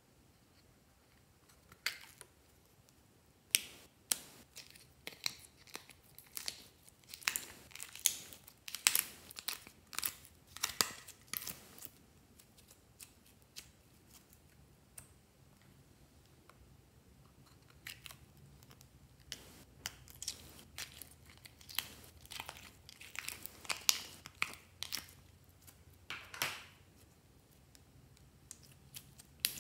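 Plastic slime containers being handled and opened, and slime squeezed and pulled out onto the tray, with irregular sharp clicks and crackles and a few louder snaps.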